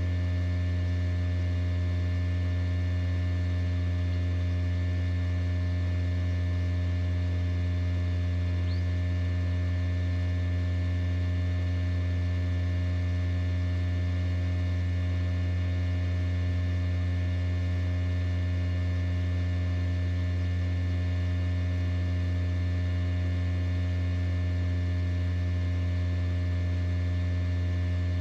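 Steady electrical hum of an egg incubator, a constant low drone with many steady overtones and no change in level. One faint short high chirp about nine seconds in.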